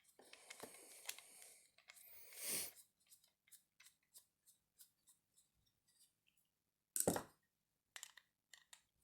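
Small screwdriver scraping and clicking on the metal of a mortise lock cylinder, followed by a run of light metal clicks. One sharp clack about seven seconds in, the loudest sound, then a few more clicks.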